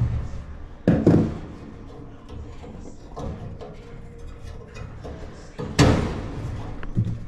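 Handling knocks and clunks: a double clunk about a second in, a louder one near six seconds and a small knock near the end, over a steady low hum.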